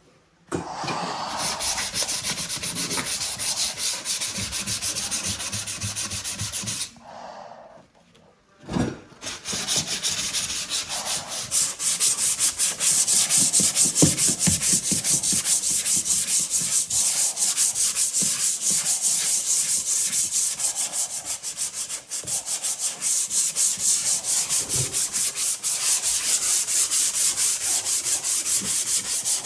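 Sandpaper rubbing over dried drywall joint compound in quick, rhythmic back-and-forth strokes by hand, with a short pause about seven seconds in.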